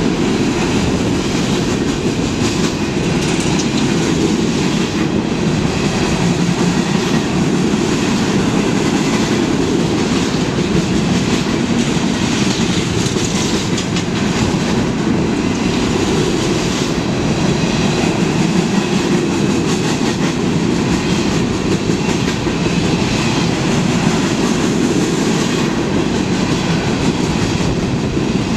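A long freight train of empty open-top gondola cars rolling past: a steady loud rumble of steel wheels on the rails, with light clickety-clack wheel clatter.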